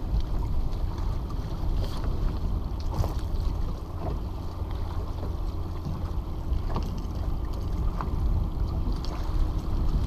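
Wind rumbling on the microphone and small waves slapping against a fishing boat's hull, with a few light clicks and knocks scattered through.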